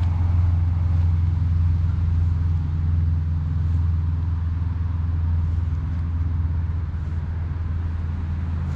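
Steady low rumble of road traffic from a nearby street, an unbroken drone with a faint hiss above it.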